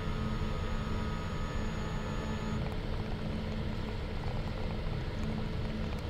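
Steady low mechanical hum of the Iscador sap-mixing machine running, with a thin high whine over it that stops about two and a half seconds in.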